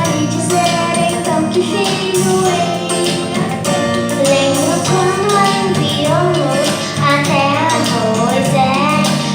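A group of voices, women and children among them, singing a song with instrumental accompaniment and a jingling percussion part.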